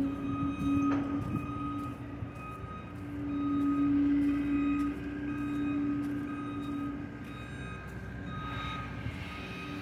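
Vehicle reversing alarm beeping repeatedly at an even pace over a steady low engine drone.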